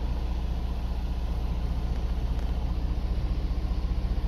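Heavy-truck diesel engine of a 2016 Freightliner Cascadia idling, heard inside the cab: a steady low rumble with an even pulse.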